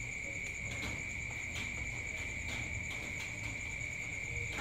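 Crickets trilling steadily on one high pitch. Faint soft clicks sound now and then underneath.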